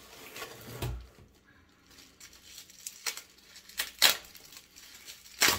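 A small item being taken out of its packaging by hand: scattered rustling and tearing with several sharp clicks, the loudest about four seconds in and again near the end.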